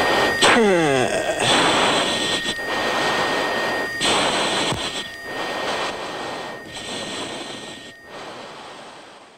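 F-16 jet engine and airflow noise on the landing rollout: a steady rushing sound with a thin high tone through it. About half a second in, a pitched whine drops quickly. The sound fades away toward the end.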